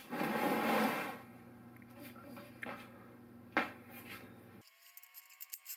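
Plastic oil drain pan slid and scraped over a concrete garage floor, followed by a few scattered knocks and clicks of handling. About four and a half seconds in the sound cuts off and a faint held tone is left.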